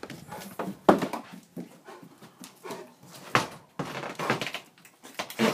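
Dog barking in a few short, sharp outbursts, agitated, amid the knocks and clatter of a screen door and house door as it is brought inside.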